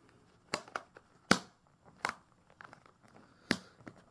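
Model-train box and packaging being handled: a string of short rustles and clicks, the sharpest a little over a second in, as the locomotive is packed back into its box.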